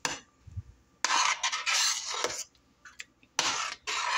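A spoon stirring and scraping through tomato salsa frying in a stainless steel saucepan, in two long strokes about two seconds apart.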